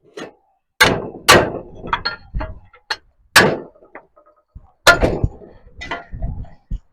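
Hammer blows on steel plate as it is bent and beaten into shape: four hard strikes at uneven intervals, with lighter knocks between them.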